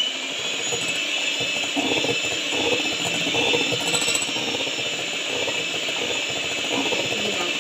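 Electric hand mixer running steadily, its beaters whisking foamy egg whites in a glass bowl, the meringue stage of making macarons.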